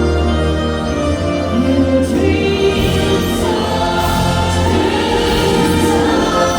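Music with choir-like singing over held chords and a steady deep bass.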